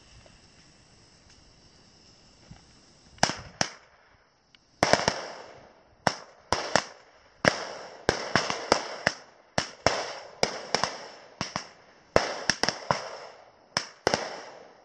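Firecrackers going off, starting about three seconds in: an irregular string of sharp bangs, one to two a second, each with a short echoing tail.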